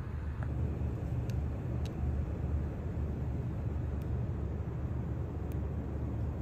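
Steady low outdoor rumble, with a few faint, sharp ticks scattered through it.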